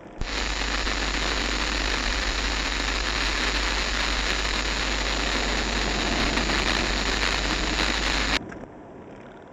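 A loud, steady hiss of static-like white noise that switches on abruptly and cuts off sharply about eight seconds in.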